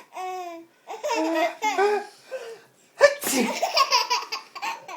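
A baby boy laughing in short, high-pitched bursts, with a sudden loud burst about three seconds in that is followed by more laughing.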